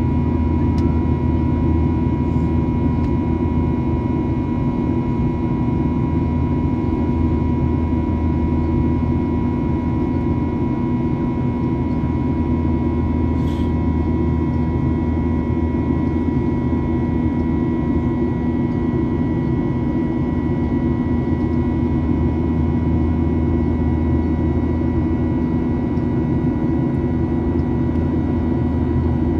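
Steady cabin noise inside a Boeing 737-900ER climbing out: an even rush of air and engine noise from its CFM56-7B turbofans, with a few steady hum tones running through it.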